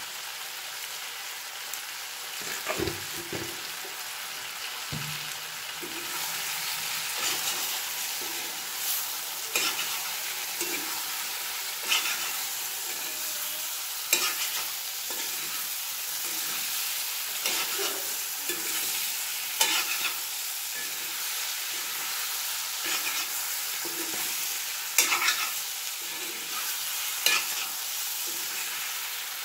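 Jackfruit and chicken pieces sizzling as they fry in a cast-iron kadai, with a spatula scraping and turning them every second or two. There are a couple of knocks of the spatula against the pan about three seconds in.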